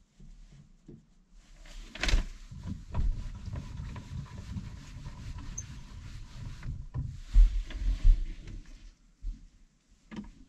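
Knocks, bumps and rustling of a person shifting about on hands and knees on a plywood loft floor, with a sharp knock about two seconds in and heavier thumps a little after the middle.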